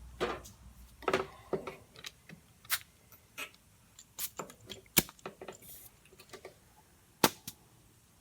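Scattered light clicks and knocks of a compressed-air blow gun and a brake wheel cylinder being handled, with two sharper knocks about five and seven seconds in and a brief faint hiss just before the six-second mark.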